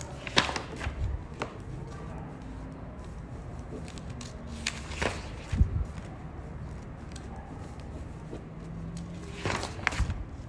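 Scattered clicks and knocks of small objects being handled, with the sharpest about half a second in, around five seconds in and near the end, over a low steady hum.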